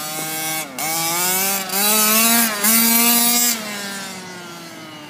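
Small RC car engine revving hard in bursts, with two brief throttle lifts, about a second in and again near the middle. It runs at full throttle at its loudest, then its note slowly falls and fades as the car runs off away.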